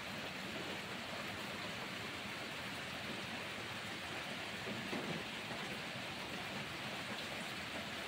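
Steady rain falling, an even hiss with no break. About five seconds in there is one brief soft bump.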